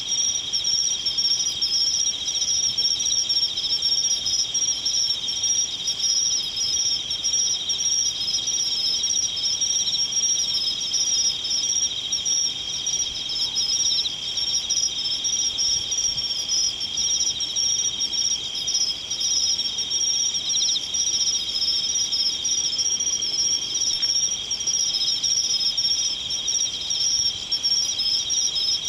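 A dense chorus of insects trilling without a break, with two shrill bands of fast, even pulsing.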